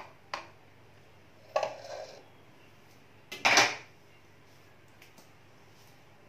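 Utensils knocking and scraping against a ceramic plate and pan as biryani is served: four short clatters in the first four seconds, the loudest about three and a half seconds in, then only a few faint ticks.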